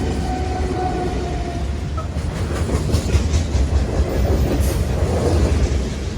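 Train rolling past with a steady heavy low rumble; a run of wheel clicks over rail joints comes through about halfway.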